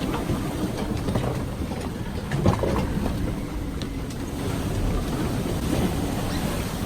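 Strong wind and rough sea around a sailboat: a steady low rumble of wind and rushing water, with one thump about two and a half seconds in.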